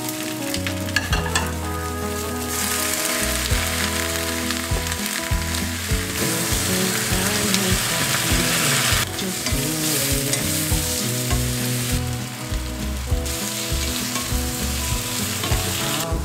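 Sliced Korean fish cake and vegetables sizzling in a hot nonstick frying pan as they are stirred with a wooden spatula; the sizzle swells and falls back several times. Soft background music plays underneath.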